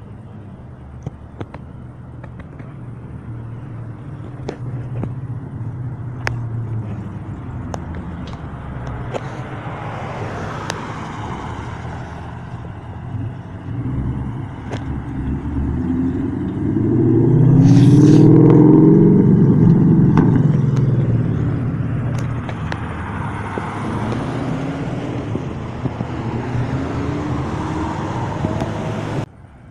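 Street traffic, with cars passing close by. One pass swells to the loudest point a little past the middle, its engine note dropping as it goes by.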